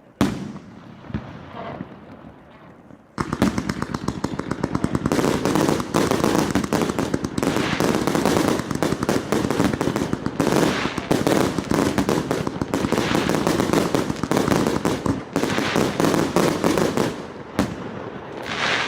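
Consumer fireworks cake, the FP B418 100-shot 2-inch battery, firing. A single sharp bang comes just after the start. From about three seconds in, a dense, rapid crackling of many pops runs for some fourteen seconds before easing off.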